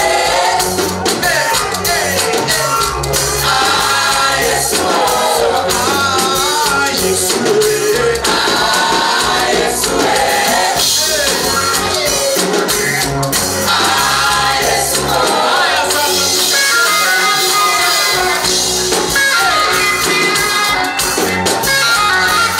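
Gospel song with voices singing over instrumental backing and a steady beat.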